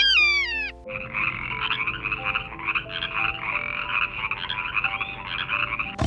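A short falling meow-like call, then from about a second in a continuous rapid, raspy chorus of calls, over background music with steady notes.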